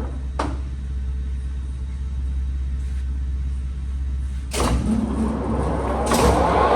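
National hollow-spindle lathe running in its high range with the spindle at about 205 rpm: a steady low hum, with a click about half a second in. About four and a half seconds in a louder, noisier running sound starts suddenly and steps up again about six seconds in.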